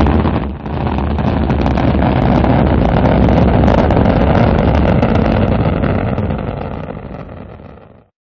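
Rocket engine roar as a sound effect: a loud, deep, rumbling rush with a faint crackle. It dips briefly about half a second in, holds steady, then fades away near the end and cuts off.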